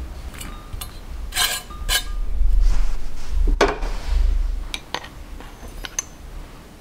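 Ceramic dishes and utensils being handled on a table: a few light clinks and taps, with a sharper knock about halfway through and a low rumble in the middle.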